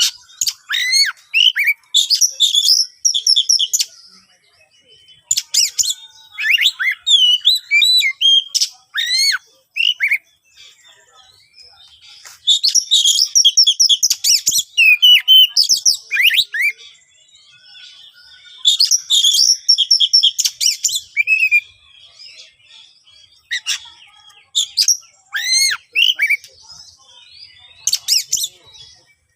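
Oriental magpie-robin (kacer) singing loud, harsh song: bursts of rapid, sharply sliding notes and chatter a few seconds long, broken by short pauses.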